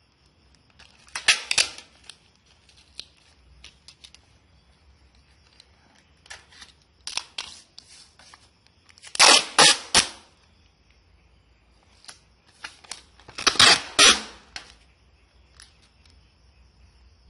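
Packing materials handled while a parcel is wrapped: four bursts of rapid sharp crackling, the loudest about halfway through and another near the end, with scattered small clicks and rustles between.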